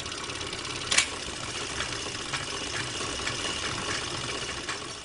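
Steady mechanical running noise with faint irregular clicks and one sharper click about a second in.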